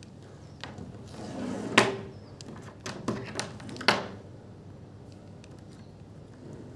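Cardboard packaging being handled: a sliding rustle and half a dozen knocks and thuds, the loudest about two seconds in.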